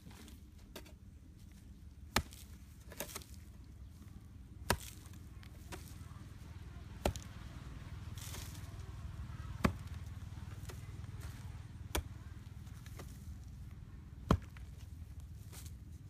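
A long-handled hoe chopping into hard, dry soil: a sharp strike about every two and a half seconds, six strong strikes with a few lighter knocks between them.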